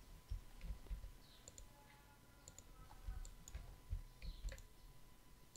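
Faint computer mouse clicks, a few scattered single clicks, with some soft low thumps in between.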